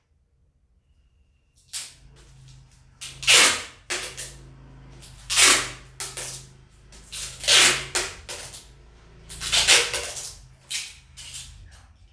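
Clear packing tape being pulled off its roll and pressed around a parcel, in a string of short, rasping rips. The rips begin about two seconds in, after a near-silent moment.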